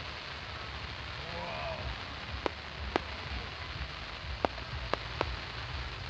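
Fireworks crackling: a dense, steady rain-like fizz of crackle effects, with five sharp pops, two about half a second apart near the middle and three close together towards the end.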